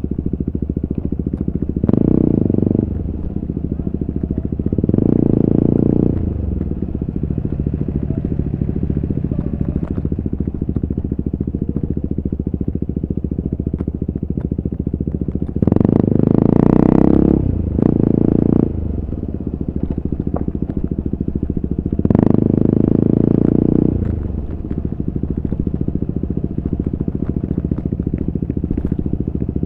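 2022 KTM RC 390's single-cylinder engine breathing through an Akrapovič exhaust, running steadily under way. It swells louder five times for a second or two each as the throttle is opened, with the longest swell about midway.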